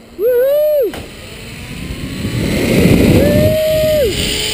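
A man whooping twice as he launches down a zipline: a short rising "woo" right at the start and a long held one about three seconds in. Under them, a rush of wind and trolley noise on the cable builds from about a second and a half in as he picks up speed.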